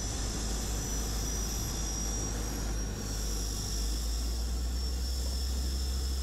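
DHC-6 Twin Otter's twin Pratt & Whitney PT6A turboprops running at low power as the seaplane taxis slowly on the water after landing. The sound is a steady low drone under a constant high turbine whine, with the low drone strengthening slightly about four seconds in.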